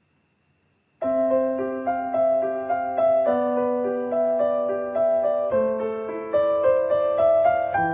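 Background piano music. It starts after about a second of silence and plays a series of struck notes.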